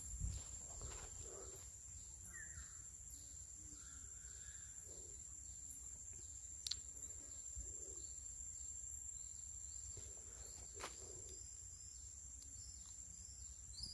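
Faint tropical forest ambience: insects keep up a steady high-pitched trill with a faintly repeating chirp, a few short bird calls sound in the first few seconds, and two sharp clicks stand out, one about halfway through and one near the end.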